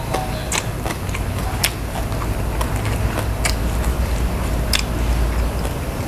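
A person chewing crunchy food close to the microphone, with several sharp crunches about a second apart, over a steady low rumble.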